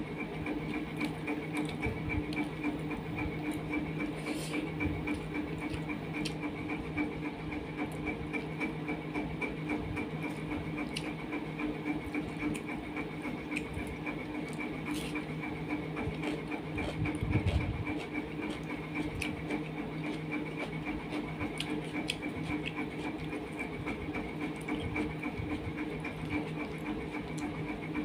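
Eating by hand from a steel plate: scattered soft clicks and smacks of fingers mixing rice and curry and of chewing, with one dull thump a little past the middle. A steady hum of several fixed tones from a running motor runs underneath.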